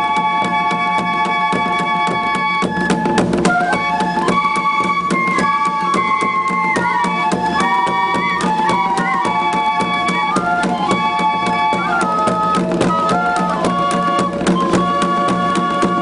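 Suling tambur band: several bamboo flutes play a tune in chords over a steady, fast drumbeat. The flutes hold a chord at the start, move through a running melody in the middle, and settle on a held chord again near the end.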